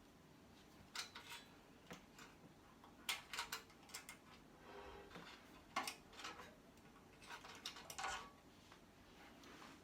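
Faint scattered clicks and clinks of hand tools and small metal and plastic parts being handled while an electronic device is taken apart for scrap.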